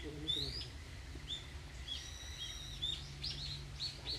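Small birds chirping, many short high chirps over and over, with one longer held note about halfway through. A steady low rumble runs underneath.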